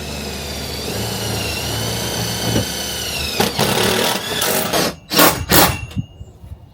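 Handheld power tool running with a steady high whine for about three seconds, then rougher grinding noise and two loud knocks about five seconds in, as a 2x4 bed support is built.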